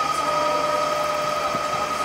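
Inside the cab of a JR Central 211 series 5000 electric train at a station platform: a steady electrical hum with a constant high whine over it.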